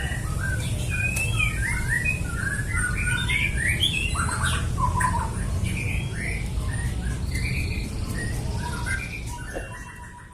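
Songbirds chirping and calling in many short, quick notes over a steady low rumble, fading out near the end.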